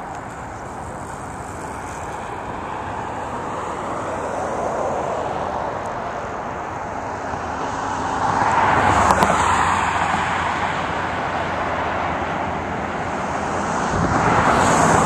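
Jet airliner on final approach, its engine noise building steadily as it comes closer. Mixed with passing road traffic, which swells louder about eight seconds in and again near the end.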